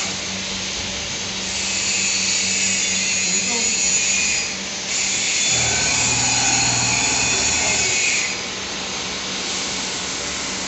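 Sparkonix CNC wire-cut EDM machine running: a steady low hum under a high hiss. The hiss comes in about a second and a half in, drops out briefly near the middle and stops about eight seconds in.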